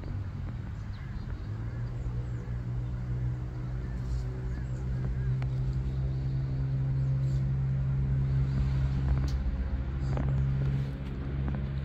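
A motor vehicle's engine running at a steady low pitch, growing gradually louder, with a few faint clicks over it.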